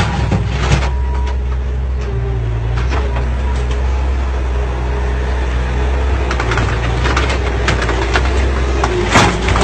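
Heavy vehicle engine running steadily with a low hum, with scattered short knocks and clanks and a louder knock near the end.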